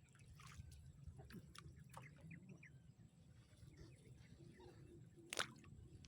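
Near silence: faint outdoor ambience with a low rumble, a few soft short chirps, and one sharp click a little over five seconds in.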